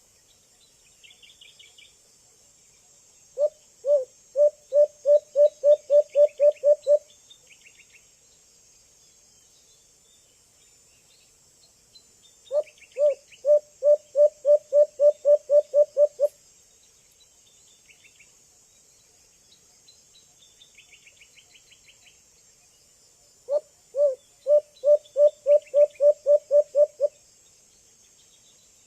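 Young white-eared brown dove calling: three bouts of about a dozen deep hoots each, the hoots coming faster and growing louder through each bout. A steady high insect drone and a few faint chirps from other birds sound behind it.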